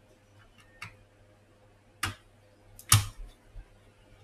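A few sharp plastic-and-metal clicks of a PC3-10600S DDR3 laptop RAM stick being fitted into its memory slot, the loudest click about three seconds in.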